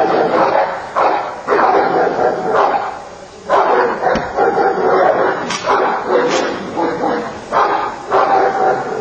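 Guard dog barking over and over in quick loud runs, with a brief lull about three seconds in.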